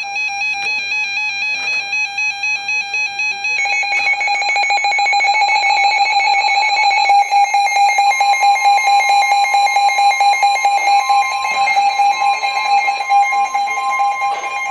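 Electronic alert tones of an Emergency Alert System tornado warning: a loud, warbling beeping tone that changes about three and a half seconds in to a denser, rapidly pulsing alarm tone, which stops just as the spoken warning begins.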